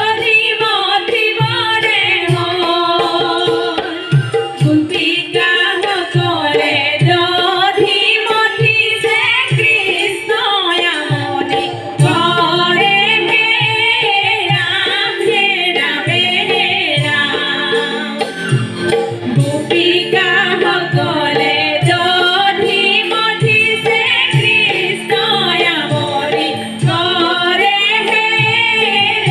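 Raas Leela stage music: a voice singing an ornamented, wavering melody over regular drum strokes.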